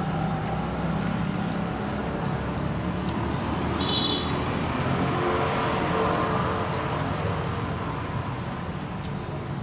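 Steady road-traffic noise that swells a little around the middle. About four seconds in there is a brief high squeak, fitting a fork scraping on a metal plate.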